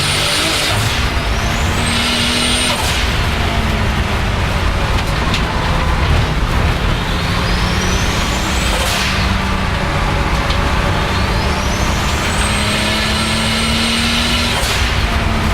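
Turbocharged 3.8-litre M30 inline-six of a BMW 535i E34 track car pulling hard. Its turbo whistle climbs to a high, steady pitch, and the whistle is cut off suddenly several times as the blow-off valve vents on each lift or gearshift.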